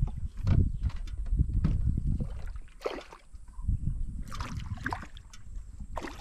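A hooked serandang snakehead thrashing and splashing at the water's surface beside a small boat, with several sharp splashes, a cluster of them between about four and five seconds in, over a low rumble.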